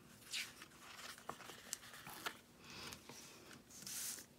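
Paper sticker sheets rustling and crinkling as stickers are handled: a few short, scratchy swishes, the longest near the end.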